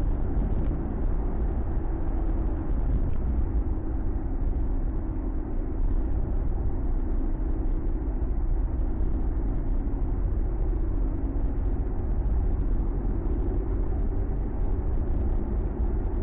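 Ford Mustang cruising, heard from inside the cabin: a steady low engine drone and tyre-road rumble.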